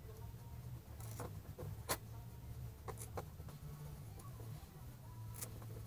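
Scattered small clicks and taps of a finished quadcopter's plastic and metal parts being handled, over a low steady hum.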